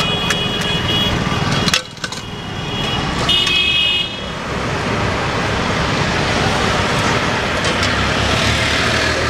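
Street traffic noise with vehicle horns honking: one horn ends about a second in, and a louder one sounds briefly about three and a half seconds in.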